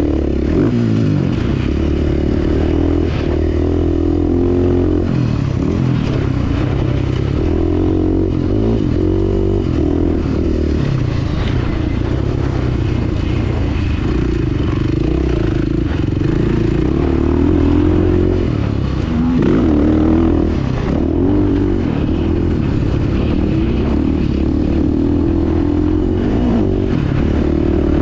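Motocross dirt bike engine heard close from an onboard camera, revving up and down repeatedly as the rider accelerates out of turns and shifts through the gears.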